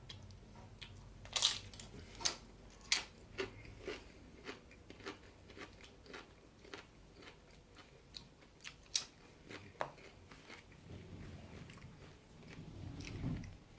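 A person chewing and biting food close to the microphone: a run of sharp, wet crunches and mouth clicks, the loudest in the first three seconds.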